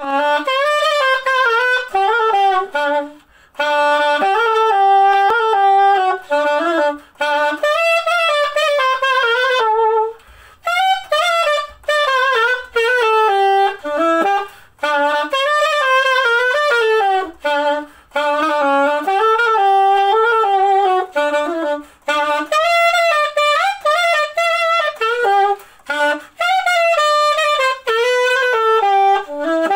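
Cheatau CAS 21L alto saxophone played solo: a melody of changing notes in phrases, broken by short pauses.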